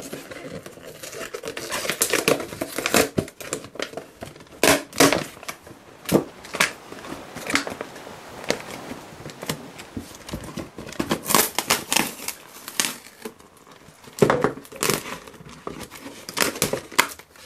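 Clear plastic blister packaging crinkling and crackling as a toy set is handled and pulled out of its cardboard box, in irregular bouts of loud crackles.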